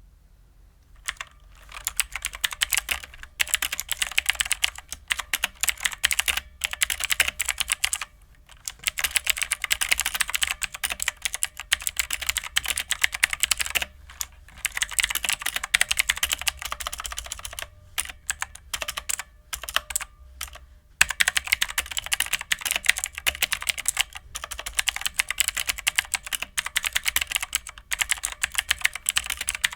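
Typing on a stock Red Dragon Kumara mechanical keyboard with clicky Outemu Blue switches: a fast, continuous stream of key clicks, broken by a few short pauses.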